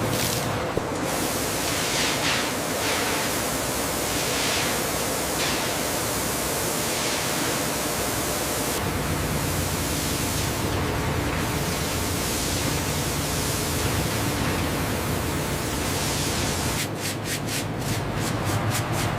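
Steady hiss-like factory machinery noise, changing character abruptly about 9 and 17 seconds in.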